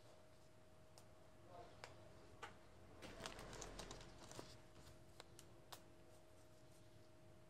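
Faint small clicks and crinkles of chili pepper stems being pinched off by hand and peppers shifted in a plastic bag, busiest about three to four seconds in, over a faint steady hum.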